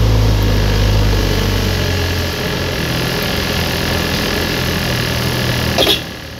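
Delivery truck's engine running, heard inside the cab, with a steady low rumble whose deepest part fades about two seconds in. A short knock sounds near the end.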